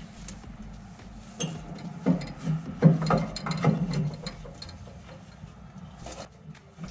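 Clicks and knocks of metal parts being handled: a steel exhaust pipe flange and bolt bumping against a mounting bracket while being lined up. A single knock comes about a second and a half in, then a cluster of them over the next two seconds, and it goes quieter near the end.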